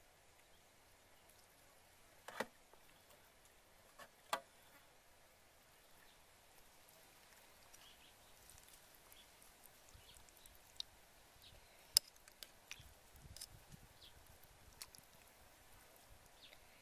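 Metal spoon clinking against a soup bowl several times, with short sharp taps; the loudest comes about twelve seconds in, over faint background.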